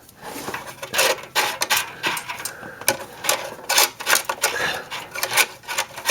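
A 7/8 box wrench on a tight oxygen sensor in the exhaust pipe: a quick, irregular run of metal clicks and scrapes as the wrench is worked back and forth to loosen the sensor.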